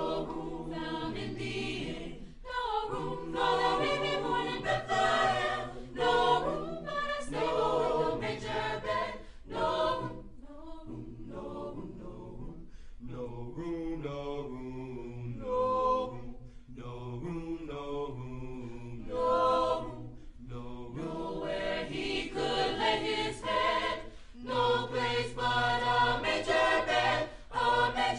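Student choir singing in harmony, with held low notes beneath the upper voices and no clear words.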